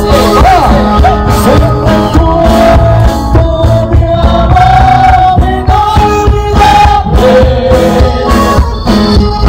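Live norteño band music played loud over a PA: singing and long held melody notes over bass and a steady beat.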